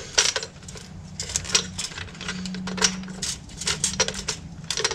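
Irregular light clicks and rattles of a new plastic fuel pump module assembly being handled while its rubber gasket is worked on, with a faint low hum underneath.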